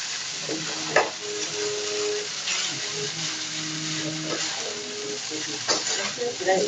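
Noodles and vegetables sizzling in a hot pan as they are stirred, with a steady frying hiss. The utensil knocks and scrapes against the pan now and then, loudest about a second in and again near the end.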